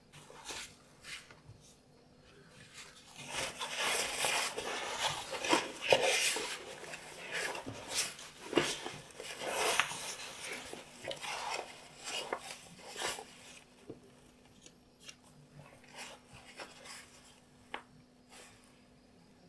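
Grey lining fabric rustling as it is unfolded and spread out by hand, starting about three seconds in and loudest for several seconds, then dying down to a few light taps and brushes near the end.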